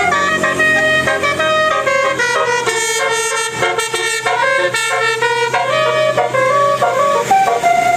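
A bus's basuri telolet musical horn playing a tune: a run of held notes that step up and down in pitch, with a low steady hum beneath.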